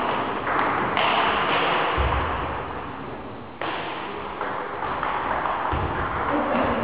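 Table tennis rally: the ball clicking sharply off the bats and the table, each hit ringing on in the hall's echo, with two low thuds on the floor.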